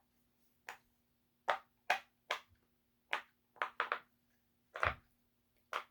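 Silicone pop-it fidget bubbles being pressed, giving about nine short, sharp pops at an uneven pace, one or two at a time.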